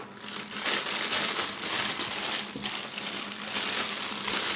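Clear plastic bag crinkling and rustling as it is pulled and worked off by hand. The rustling is irregular and starts about half a second in.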